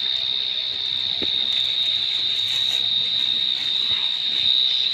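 Insects droning, one steady high-pitched buzz that holds an even pitch without a break.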